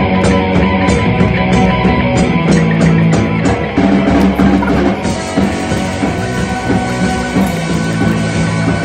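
Rock music: a band recording with a drum kit playing a steady beat under guitar and bass.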